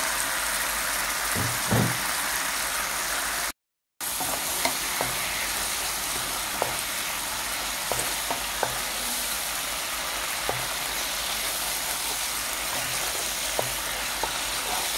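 Chili-garlic sauce sizzling and bubbling in a frying pan, with scattered light taps of a wooden spatula stirring it. The sound drops out for a moment about three and a half seconds in.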